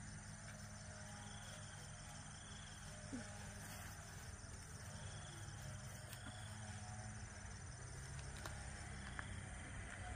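Faint outdoor ambience with insects chirping steadily, and a few light clicks.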